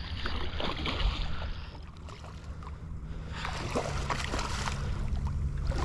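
Water sloshing and splashing in two uneven spells, with small knocks, over a steady low rumble.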